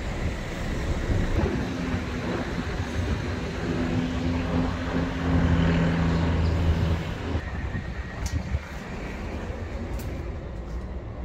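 Steady outdoor background noise with a low engine hum from a vehicle for several seconds in the middle. The noise then drops away, with a few faint clicks near the end.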